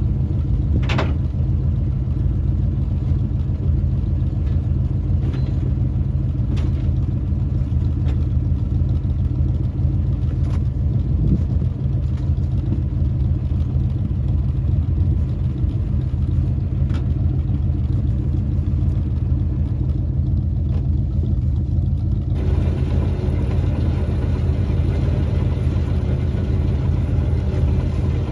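1968 Dodge D300 tow truck's engine running steadily, with a few light clicks. Its sound gets brighter and noisier a little after three quarters of the way through.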